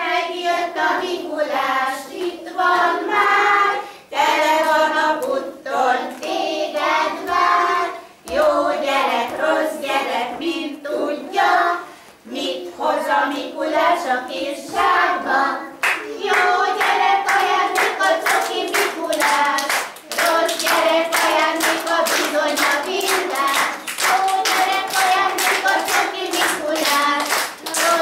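A group of young children singing a song together and clapping along to the beat; the clapping becomes steadier and denser about halfway through.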